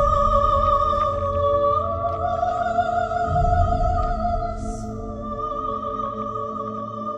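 Music: long held high tones that step up in pitch about two seconds in and drop back near five seconds, over a deep rumble that swells and fades.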